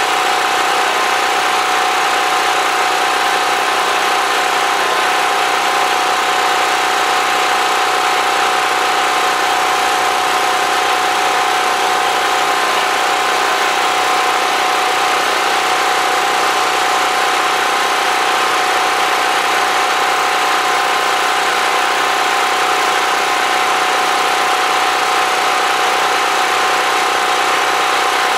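Generator engine running steadily: a loud, constant drone with a steady whine and hiss that never changes.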